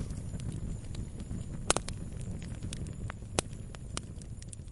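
Fire crackling: irregular sharp pops and snaps over a low, steady rumble, with two louder pops a little under two seconds in and about three and a half seconds in.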